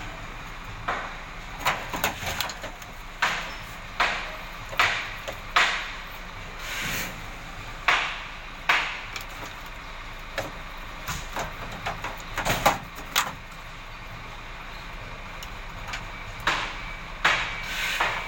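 Irregular sharp knocks and bangs from repair work on an old Isuzu dump truck's cab, roughly one every second, with a quieter gap about three quarters of the way through.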